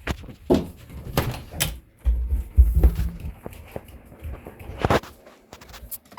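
A string of irregular knocks and clicks with heavier low thumps about two to three seconds in, like objects being handled or set down.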